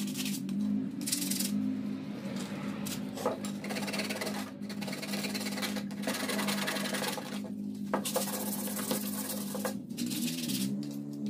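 Pallet-wood pieces being hand-sanded with sandpaper, rubbing in long strokes broken by short pauses, over a steady low hum.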